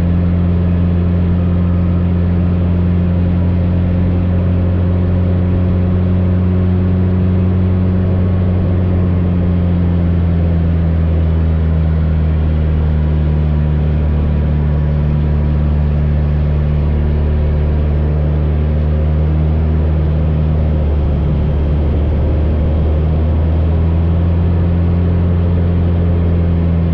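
The 180-horsepower piston engine and propeller of an AcroSport 2 aerobatic biplane running steadily in flight. The drone dips a little in pitch through the middle and climbs back near the end.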